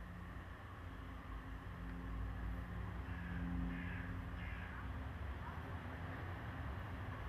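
Outdoor background: a steady low rumble with a faint hum, and a bird calling in two short bouts, about two and a half and about four seconds in.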